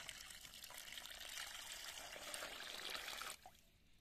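Water poured in a steady stream into a stainless steel bowl of cut raw pork belly, splashing over the meat to rinse it; the pour stops suddenly a little over three seconds in.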